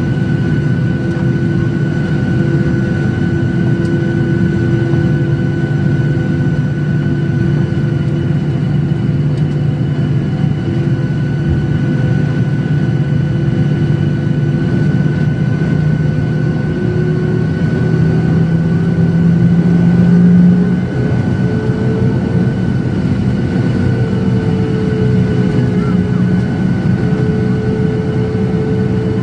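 An airliner's jet engines heard from inside the passenger cabin: a loud, steady drone with a humming whine. About two-thirds of the way through, the tones rise in pitch and the drone swells, then dips briefly and settles at a higher-pitched steady whine.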